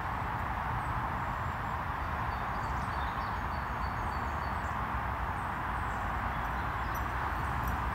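Steady outdoor background noise: an even rushing hiss with a low rumble of wind on the microphone, and faint, scattered high bird chirps.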